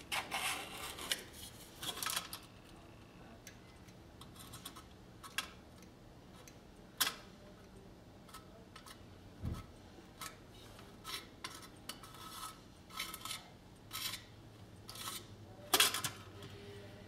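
Irregular short scrapes and clicks of a small blade and applicator working epoxy putty: scraping the two-part JB Weld mix on a plastic lid and spreading it over the dented front of a tin toy car body. A few strokes are sharper, and there is one dull knock about halfway through.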